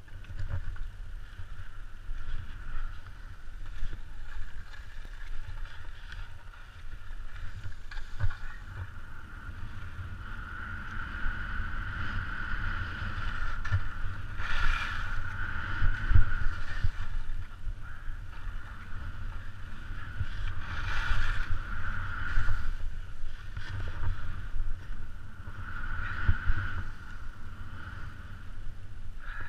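Skis hissing through snow while wind rushes over the action camera's microphone, a steady low rumble with a hiss that swells several times.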